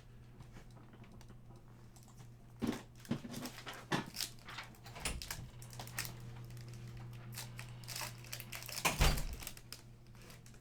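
Trading cards being handled and slid against one another: irregular small clicks and rustles starting a couple of seconds in, the loudest a second before the end, over a steady low hum.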